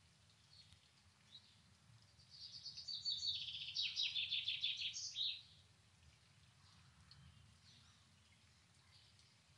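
A songbird sings one quick phrase of rapid repeated notes, about three seconds long, starting about two seconds in and ending in a short flourish. A few faint chirps sound before and after it, over a low steady background rumble.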